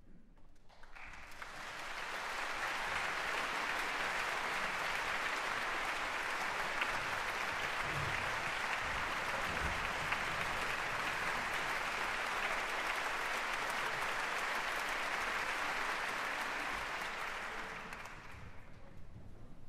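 Concert-hall audience applauding, building up about a second in, holding steady, and dying away near the end.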